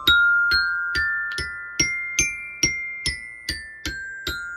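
Glockenspiel played with two mallets, a slow C major scale one struck note at a time, about two and a half notes a second, each bar ringing on. It climbs to the top note, high D, about two seconds in, then steps back down the scale.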